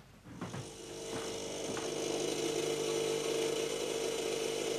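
A small motor-driven machine running with a steady hum, building up over the first second or so and then stopping suddenly near the end.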